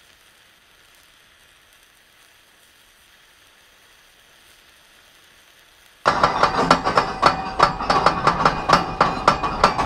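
Faint hiss for about six seconds, then the clacking of the Anaconda inverted roller coaster's chain lift anti-rollback ratchet, which starts suddenly and keeps a fast, even rhythm of about three to four clacks a second as the train climbs the lift hill.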